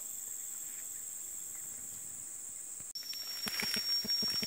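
Steady high-pitched insect chorus of a tropical forest. About three seconds in it cuts off abruptly, and a single thin, steady high insect whine starts with scattered crackles and rustles under it.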